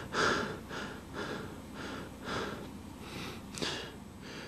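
A person panting, short quick breaths about two a second that slowly fade.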